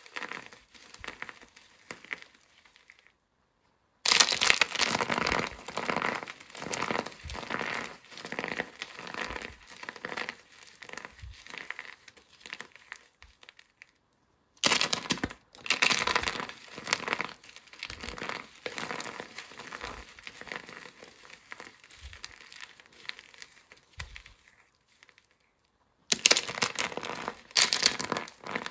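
Hands squeezing and crumbling starch-coated soap pieces: dense, crunchy crackling in repeated squeezes, broken three times by a short dead-silent gap.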